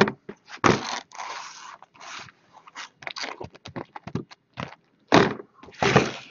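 Cardboard hobby boxes of trading cards picked up, set down and slid on a wooden tabletop: irregular scraping and rustling, with a few louder short knocks and scrapes, the loudest about five seconds in and near the end.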